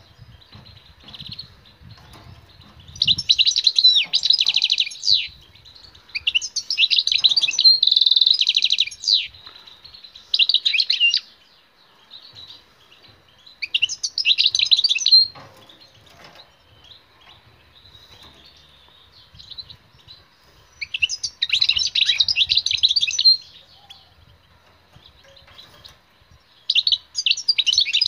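European goldfinch singing: six bursts of fast, high twittering song, each one to three seconds long, with pauses between them.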